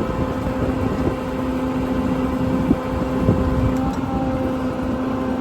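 Diesel engine of an International 4300 service truck running steadily with the PTO engaged, driving the hydraulic system, with a steady whine over the engine rumble.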